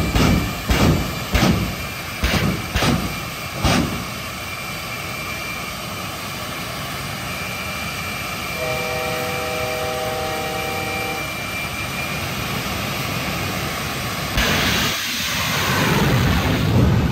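Jet engine of a jet-powered drag-racing semi truck: a string of flame-thrower blasts from its stacks during the first four seconds, then running steadily. About fourteen and a half seconds in it surges suddenly louder and keeps building as the truck launches down the strip at full power.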